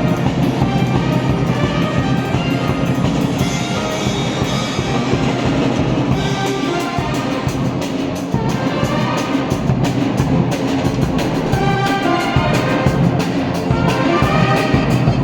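Music with brass and drums, loud and continuous.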